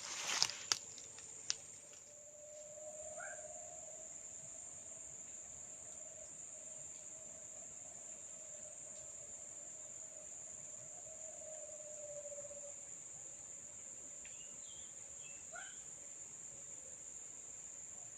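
Insects, crickets or similar, trilling in one steady high-pitched drone. A few sharp clicks come in the first second and a half, and two faint short chirps come about three seconds in and near the end.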